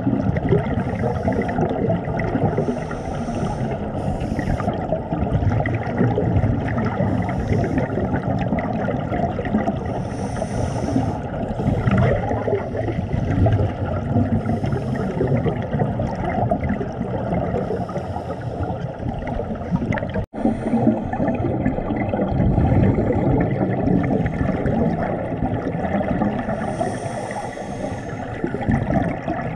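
Scuba divers' regulator breathing heard underwater: a steady muffled rush of water with bubbling from exhaled air and short hisses every couple of seconds. The sound drops out for an instant about two-thirds of the way through.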